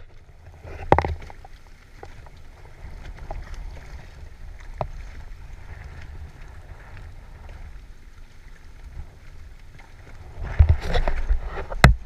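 Wind rumbling on an action-camera microphone over water lapping against a small kayak, with a few sharp knocks. About ten seconds in comes a louder stretch of knocking and water sloshing.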